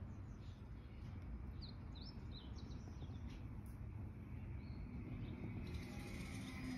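Swallows twittering: a quick run of short, high chirps between about one and a half and three seconds in, over faint steady low background noise.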